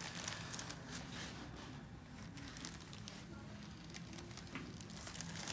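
Quiet room tone with faint rustling and a few soft, light clicks, without any loud crack.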